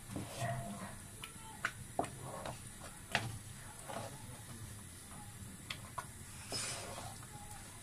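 A spoon stirring thick chili garlic sauce in a nonstick pan, giving scattered, uneven clicks and scrapes as it knocks against the pan, over a faint hiss.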